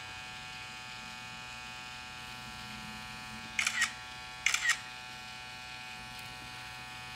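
Permanent-makeup tattoo pen buzzing steadily as its needle works over an eyebrow to take out old grey tattoo pigment. Two short high-pitched squeaks, about a second apart, cut in near the middle.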